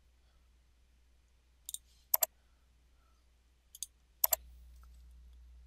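Computer mouse buttons clicking four times, each a quick press-and-release, in two pairs about two seconds apart. A low steady hum comes in just after the last click.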